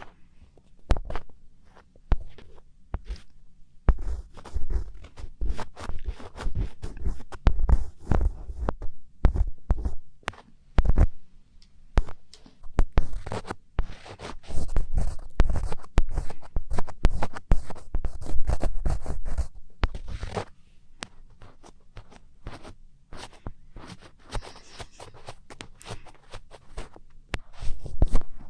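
Close-miked ASMR scratching: rapid rough strokes and clicks in dense runs with soft low thumps, thinning out after about twenty seconds.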